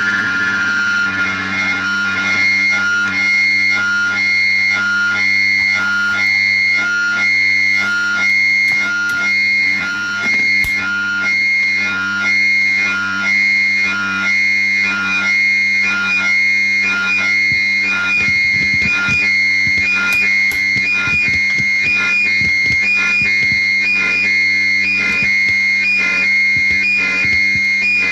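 Experimental noise music played through effects: a steady low drone under high, piercing tones that pulse on and off about one and a half times a second.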